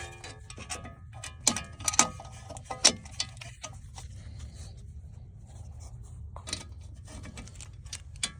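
Sharp metallic clinks and taps of a wrench and steel bolts against the front wheel hub as the hub bolts are worked loose. The clinks come several in quick succession over the first three seconds, then a few more scattered later.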